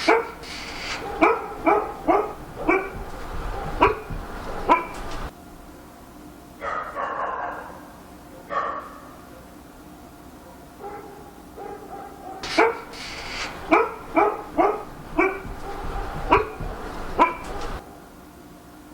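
A dog barking repeatedly in two bouts of quick barks, about two a second, with a short lull between them.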